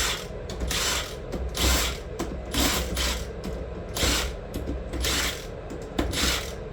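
Ratchet wrench clicking in short repeated strokes, about one to two a second, running down the differential cover bolts to a light cinch.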